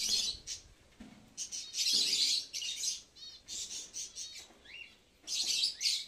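A flock of aviary birds, African lovebirds among them, chirping in shrill bursts, with a quick run of short repeated notes about three seconds in.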